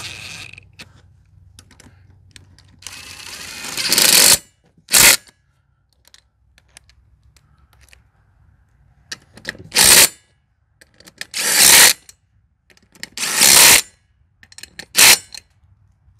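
Cordless impact driver with a socket extension running lug nuts onto a golf cart's front wheel hub, in about six short bursts with pauses between them. The first burst is the longest.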